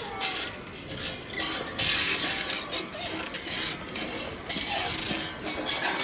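Hanging metal stepping cylinders and their chains clanking and rattling as a person steps from one swinging cylinder to the next, with a dense run of clatter in the middle.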